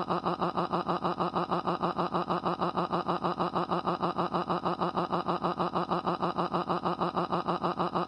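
Cartoon character crying: a fast, evenly pulsing sob at one steady pitch, about eight pulses a second.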